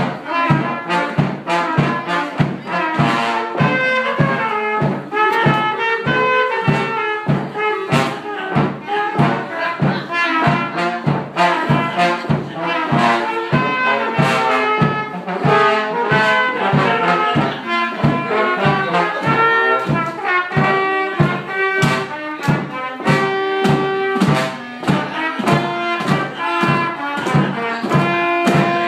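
Live oompah band playing: trumpet, trombone and clarinet carry the tune over a bass drum keeping a steady beat.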